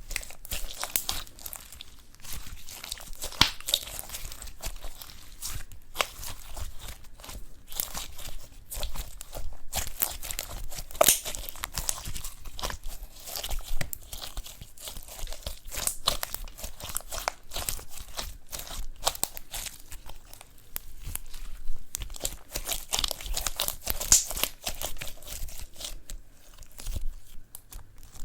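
Hands squishing and stretching eyeshadow-tinted slime: a continuous run of sticky crackles, pops and tearing sounds.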